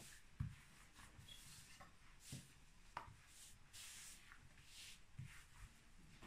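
Faint rubbing and swishing of a thin wooden rolling pin (oklava) rolling out thin dough dusted with starch on a wooden table, hands sliding over it, with a few soft knocks.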